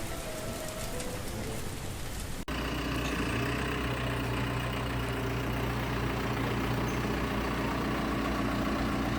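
A steady hiss like rain for about two and a half seconds, then a sudden cut to a heavy engine idling steadily with a low hum.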